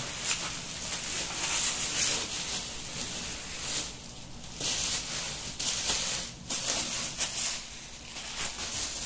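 Clear plastic wrapping crinkling and rustling in irregular spells as a cardboard cookware box is handled and unwrapped.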